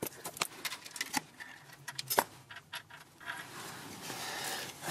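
Light metallic clinks and taps of small broken pieces of a starter gear being fished out of a tractor's bell housing, scattered through the first two seconds or so, followed by a soft rustling hiss.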